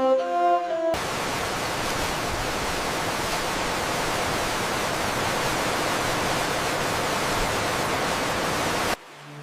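A steady, even hiss like static or rushing water, starting abruptly about a second in and cutting off abruptly near the end. Background music with held notes plays at the start.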